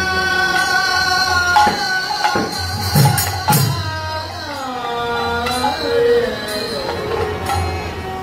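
Bengali devotional kirtan music: a male lead voice holding long notes and sliding down, over harmonium, khol drum strokes and jingling small cymbals.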